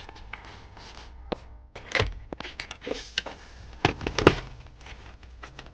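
Irregular knocks, taps and rustling of a stereo wiring harness and plastic connectors being handled, with the sharpest thunks about two seconds in and again near four seconds in.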